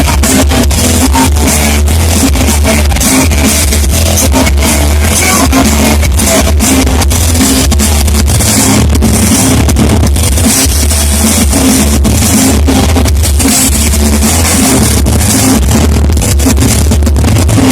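Hard rock band playing live: electric guitars, bass and drum kit, loud and continuous, recorded from the audience with a distorted, overloaded sound.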